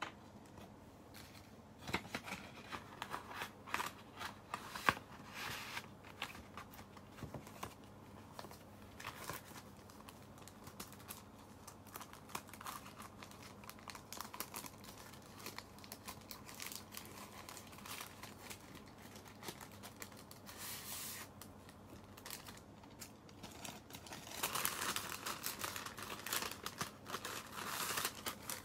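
Paper stationery and envelopes rustling and crinkling as they are handled and flipped through, with light taps. Near the end comes a longer, louder stretch of paper rustling as an envelope is opened.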